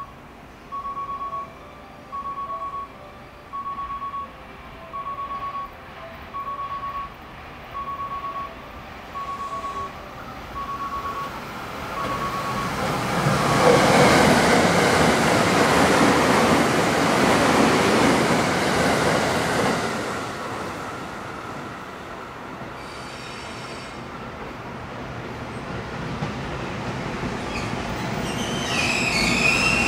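An electronic warning beep sounds at one pitch, repeating at an even pace, until the 285-series Sunrise Izumo sleeper train passes through at speed, a loud rush of wheels on rail that swells about twelve seconds in and fades after about twenty. Near the end a single EF510 electric locomotive comes in braking, its wheels starting to squeal.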